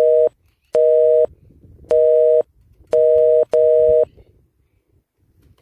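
A run of five loud electronic beeps, each about half a second long, made of two steady tones together like a telephone busy signal, spaced unevenly with the last two close together.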